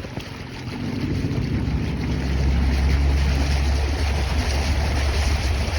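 Fishing boat's outboard motor running underway, a steady low hum that grows stronger about two seconds in, with wind and water noise.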